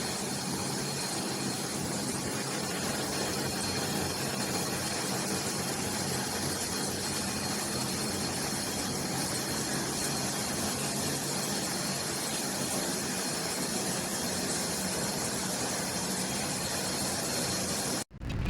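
A steady rushing noise that holds level and cuts off suddenly near the end.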